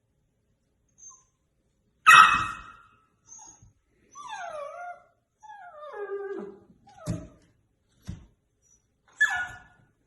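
A puppy gives a loud sharp yelp, then whimpers in long whines that slide down in pitch. Two dull thumps follow, then another short yelp near the end.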